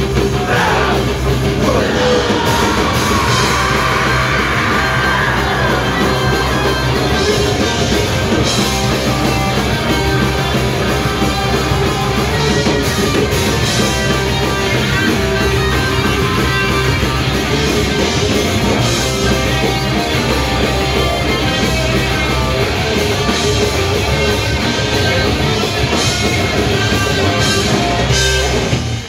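Live punk rock band playing electric guitars and drums with shouted vocals. The song stops abruptly at the end.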